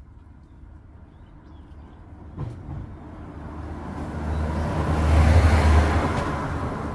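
A motor vehicle passing close by: its engine hum and road noise swell over a few seconds, loudest about five seconds in, then begin to fade. A single short knock about two and a half seconds in.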